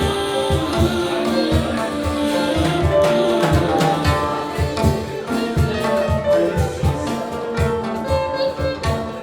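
Live world-music ensemble playing: drums keep a steady beat under plucked strings and a sustained melodic line.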